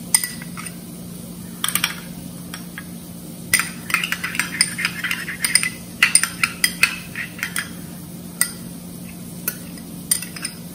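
Metal wire whisk clinking and scraping against glass bowls as tamarind paste and yogurt are stirred and scraped out of a small glass bowl into a bowl of whisked yogurt. The clinks come in irregular bursts, a short one about two seconds in and a long busy run from about three and a half to seven seconds, over a steady low hum.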